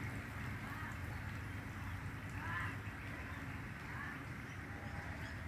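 Faint animal calls: a short call every second or two over a low, steady rumble.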